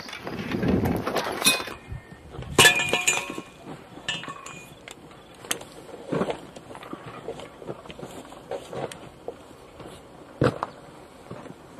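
A hammer blow with a crash of something brittle breaking, ringing clinks of pieces about two and a half seconds in. Scattered sharp knocks and clicks follow, one louder near the end, over rumbling handling noise at the start.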